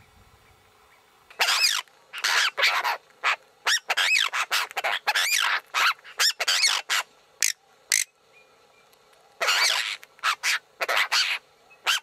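A group of apostlebirds calling, harsh rasping calls one after another, starting about a second and a half in, with a short pause near the end before a last run of calls.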